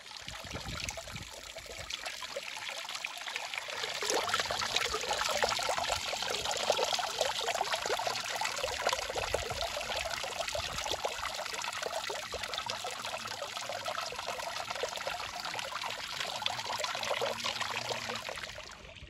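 Water trickling and dripping off a rock ledge into a hot spring pool, many small splashes running together into a steady patter. It grows louder about four seconds in.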